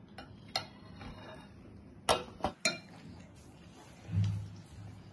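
A few light clinks and knocks of a steel spoon and china plates on a dining table, three of them close together about two seconds in, then a brief low hum near the end.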